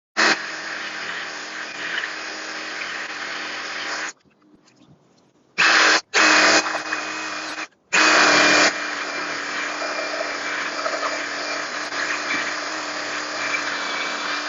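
Sawzall reciprocating saw cross cutting a live oak limb. It runs for about four seconds, stops for a second and a half, comes back in two short, louder surges and another just after eight seconds, then cuts steadily.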